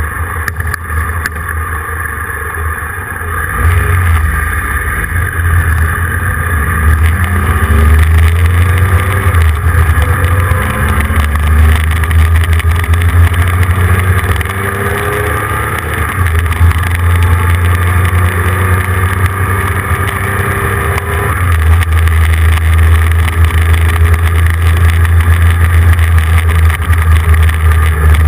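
Low, heavy wind rumble buffeting the microphone of an action camera moving along a road, louder from about four seconds in. Faint whines rise in pitch through the middle.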